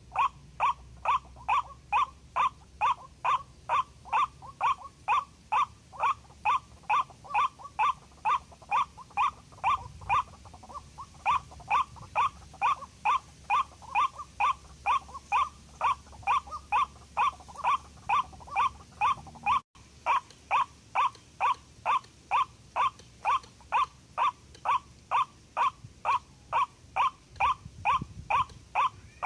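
White-breasted waterhen call: one harsh note repeated very evenly, between two and three times a second, in a long unbroken series that is the lure drawing the bird in.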